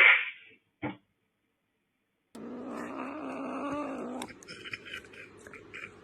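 A cat crying out: a loud short cry at the start and a brief second one just under a second later. After a pause comes a low, drawn-out call lasting about two seconds, followed by fainter clicks and rustling.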